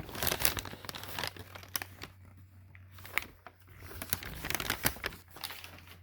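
Newspaper packing paper being crumpled and rustled by hand, in irregular crackling bursts with a quieter stretch in the middle.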